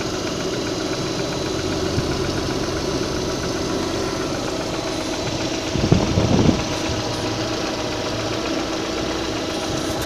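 Lada Priora's four-cylinder engine running at idle with a rapid, regular knock in it, the fault the owner is showing. There is a brief louder burst about six seconds in.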